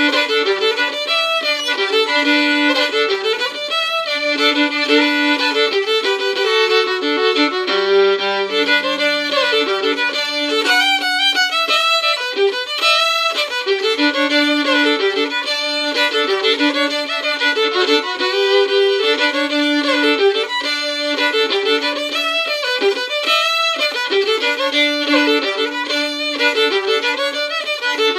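Solo fiddle playing a lively Cajun instrumental in G in standard tuning, bowed without a break, with a steady lower note sounding under the melody much of the time.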